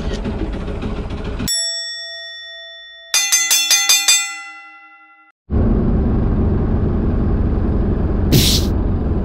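A dubbed bell effect marking the end of the match: one struck ding, then a quick run of about six ringing clangs like a ring bell, fading out. The steady noise of the boat's engine cuts out before the bell and comes back after it.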